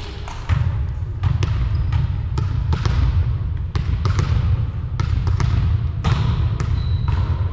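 Volleyballs being struck and bouncing on a hardwood gym floor: a dozen or more sharp hits at irregular intervals, each echoing through the large hall, over a steady low rumble.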